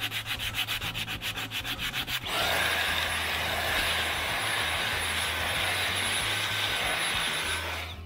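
Sandpaper wrapped round a block rubbing quickly back and forth over a filled spot on Merbau timber decking, about six strokes a second. About two seconds in, a handheld vacuum cleaner with a brush nozzle starts and runs steadily with a faint whine, picking up the sanding dust, and cuts off near the end.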